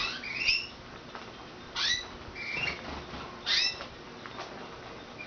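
Canaries calling: several short chirps that rise in pitch, coming in clusters at the start, around two seconds in and again around three and a half seconds.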